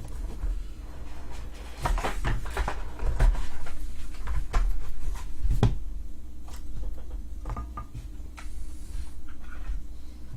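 Sports card boxes and packaging being handled and opened: scattered light taps, knocks and scrapes of cardboard and cards, over a low steady hum.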